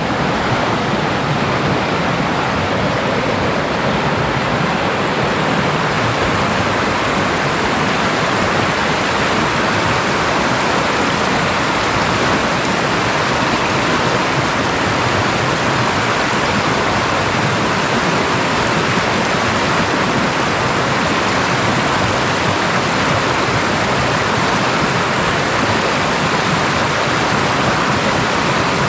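Steady rushing river water, a constant full roar of flowing water with no change throughout, like rapids or a weir.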